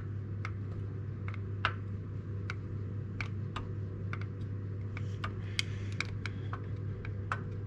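Worn standard-size piston in a VAZ 2170 Priora engine being rocked in its bore, knocking with light, fairly regular clicks about two to three times a second, over a steady low hum. The knock comes from excess piston-to-bore clearance after 180,000 km. The mechanic takes this piston slap for the engine's knock, which is usually blamed on the hydraulic lifters.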